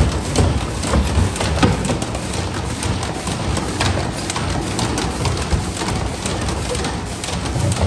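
Colamark A117H drum wrap labeling line running: steady conveyor and machine noise, with plastic quart bottles knocking against each other and the guide rails in rapid, irregular clicks.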